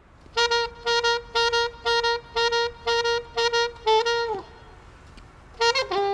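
Alto saxophone playing a run of short, repeated notes on one pitch, about two a second. The last note is held and bends down in pitch. After a pause of about a second, a new phrase of changing notes starts near the end.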